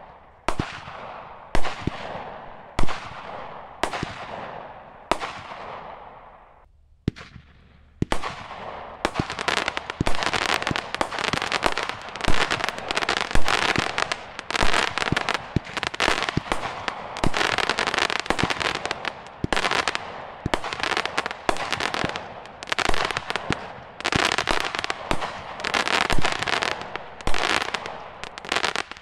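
A 20-shot, 200-gram consumer firework cake firing. For the first six seconds come single shots about once a second, each a sharp bang with a fading tail. After a short lull about seven seconds in, the shots give way to a dense, continuous crackling of bursting stars, which stops just before the end.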